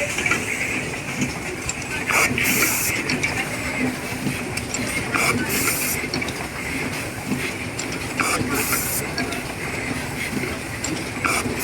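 Automatic wire soldering machine running steadily with a hum. About every three seconds it gives a click followed by a short, high hiss of air as it cycles.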